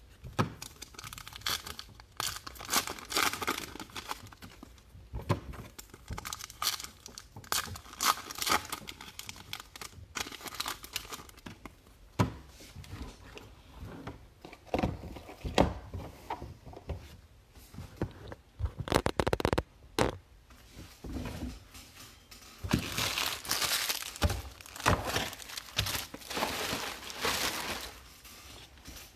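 Baseball card pack wrappers being torn open and crinkled, one pack after another: an irregular run of rustles, rips and small clicks.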